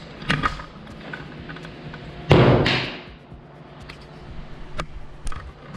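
A paint can thrown onto a plywood splitter lands with a single heavy thump a little over two seconds in, followed by a couple of short, sharp clicks near the end.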